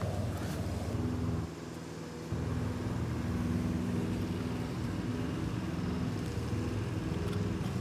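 An engine running steadily with a low hum, which drops away briefly about a second and a half in and then comes back.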